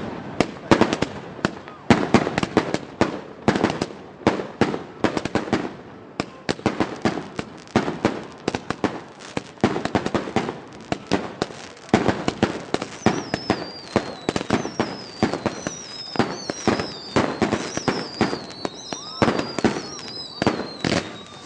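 Fireworks going off in a dense, unbroken string of sharp bangs, several a second. From about halfway through, several whistling shells add high falling whistles.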